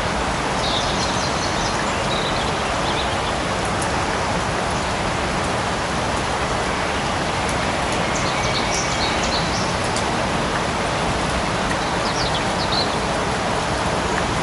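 Light rain falling steadily in a forest, an even hiss of drops with a few faint high chirps now and then.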